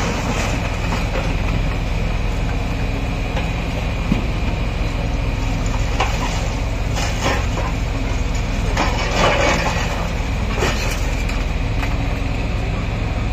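Kobelco SK140 excavator's diesel engine running steadily under load with a steady high whine, as its hydraulic grab bites into a rubble pile. Debris crunches and clatters several times, loudest about nine seconds in.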